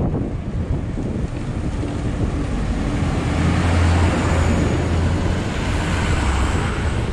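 Wind rushing over the microphone of a moving bicycle, with the steady low hum of a motor vehicle engine coming in about a second in and loudest around the middle.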